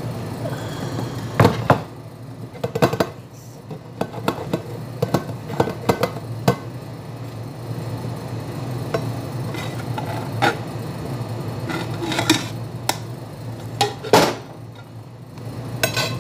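A large metal cooking pot turned upside down on a ceramic serving plate, knocking and clinking against the plate and counter as it is set down, tapped to loosen the maqluba inside and lifted off: a string of sharp knocks, loudest about a second and a half in, again near three seconds and near the end. A steady low hum runs underneath.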